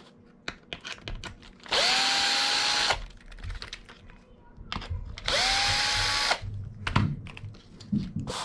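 Cordless drill-driver backing out the fuel-tank screws from an R/C buggy's aluminium chassis plate. It runs twice, each run about a second long, and each time the motor's whine climbs as it spins up and then holds. Light clicks of the bit and parts are heard between the runs.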